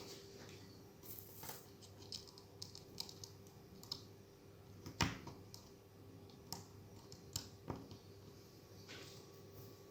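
Scattered light clicks and taps of small smartphone parts and tools being handled and pressed into place, with one sharper click about five seconds in, over a faint steady hum.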